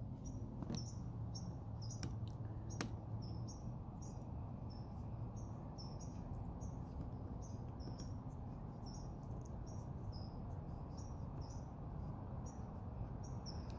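Short, high-pitched chirps repeating about twice a second from a small calling animal, over a steady low hum, with a few sharp ticks in the first three seconds.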